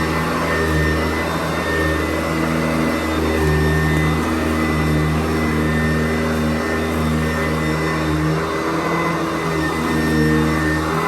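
Sanitaire SC889B commercial upright vacuum running steadily while vacuuming a floor, its motor pitch shifting slightly up and down.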